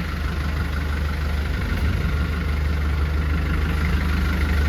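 An engine running steadily with a deep, even hum.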